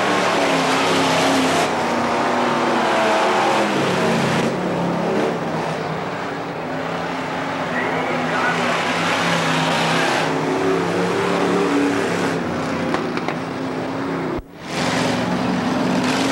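Dirt-track stock car engines racing at full throttle, several cars together, their pitch rising and falling as they pass. The sound cuts out briefly near the end.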